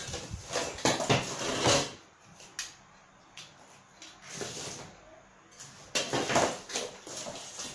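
Cardboard strips and hand tools being handled and put down on a work table: irregular rustling, scraping and knocks. They come in a cluster over the first two seconds, briefly around the middle, and again about six seconds in.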